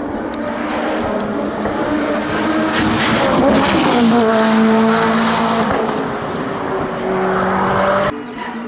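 Hillclimb race car engine at full throttle as the car goes past, getting louder toward the middle, where its pitch drops. The sound cuts off abruptly near the end.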